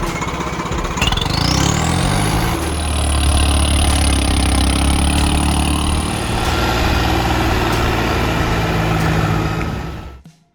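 Modified Swaraj 855 tractor's diesel engine with an aftermarket turbo, revving up while the turbo whistle climbs to a high pitch over the first couple of seconds. The whistle then holds steady for a few seconds while the engine keeps running. The sound cuts off suddenly near the end.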